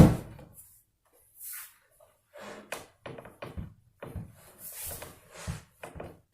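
Maple floorboards being handled and set down on a hardwood floor: a loud wooden knock at the start, then scattered lighter knocks and taps, with short brushing or sliding sounds between them.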